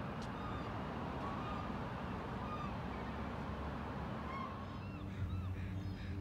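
Canada geese honking, a string of short calls over a few seconds against a steady outdoor background hiss. A low engine hum comes in about five seconds in.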